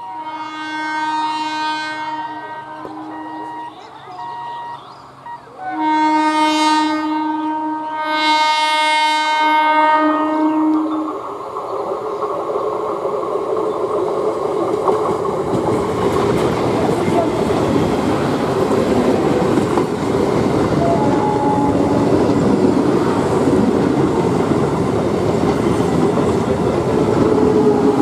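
EMU local train sounding its horn as it approaches: one blast of about three seconds, then two more close together that end about eleven seconds in. The train then runs past close by, its wheels and carriages making a steady rumble and clatter that grows louder.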